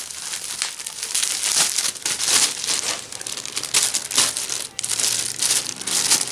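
Plastic packaging crinkling and crackling in the hands as it is opened and handled, in irregular surges.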